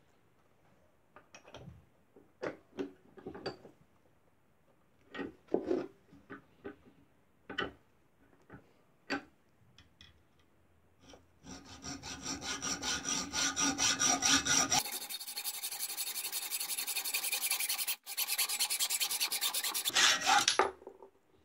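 A few scattered knocks and clinks, then from about eleven seconds in a rapid, steady abrasive rasping against a glass jar for about nine seconds, which stops shortly before the end.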